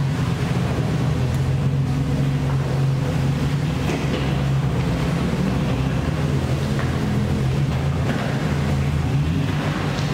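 Jeep Wrangler's engine running steadily at a constant low pitch.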